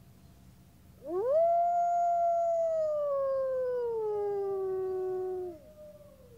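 Wolves howling. One long howl rises steeply about a second in, holds, then slowly falls in pitch. A second, higher howl joins about four seconds in and carries on briefly after the first stops, falling away near the end.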